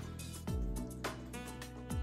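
Background music with deep drum hits and held instrumental notes.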